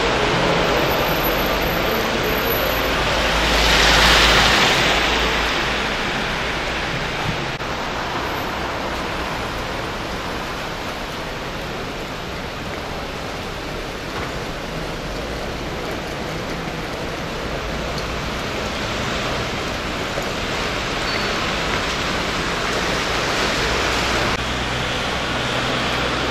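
Steady hiss of street ambience in wet snowfall, with tyres on a slushy, wet road. A louder swell about four seconds in, as a vehicle passes.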